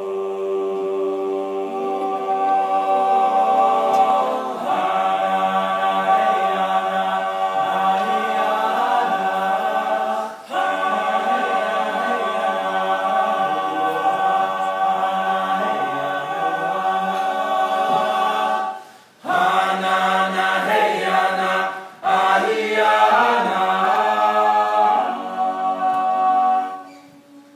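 All-male a cappella group singing unaccompanied in close harmony, holding sustained chords. There are short breaks about ten seconds in and twice around twenty seconds in, and the singing stops shortly before the end.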